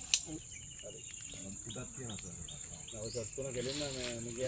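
Insects droning steadily with one high-pitched tone. A sharp click comes just after the start, and a voice is heard near the end.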